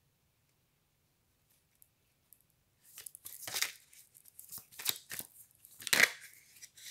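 A deck of Dixit picture cards being shuffled and handled: a run of rustling, scraping slides of card against card starting about three seconds in, the loudest stroke near the end.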